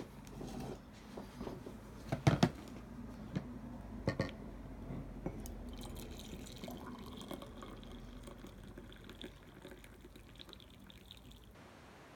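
Hot water poured from a glass kettle into a ceramic mug: a steady pour whose pitch rises slowly as the mug fills, stopping suddenly near the end. A couple of sharp knocks, the loudest sounds, come about two seconds in, with another about four seconds in.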